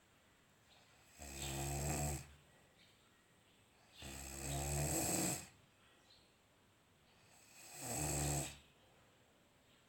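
A sleeping child snoring: three snores, each about a second long, roughly three seconds apart, with quiet in between.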